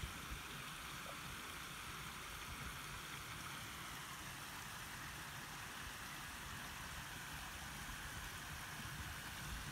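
Steady, even hiss with no distinct events; the fox pup makes no sound that stands out.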